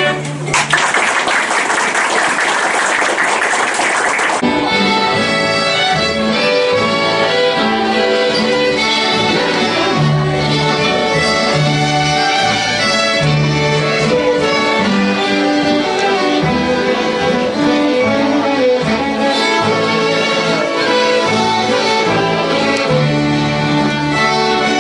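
Folk fiddle ensemble playing a tune together: several fiddles carrying the melody over a double bass. A dense burst of noise covers the music for about four seconds near the start.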